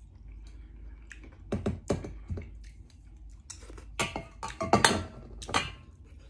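Close-up eating sounds: a person chewing, with two clusters of sharp clicks and smacks, the louder one about four to five and a half seconds in.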